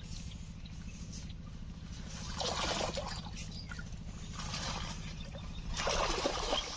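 A person wading through shallow water thick with water hyacinth: three bursts of splashing and leaves rustling as he steps through the plants, over a steady low hum.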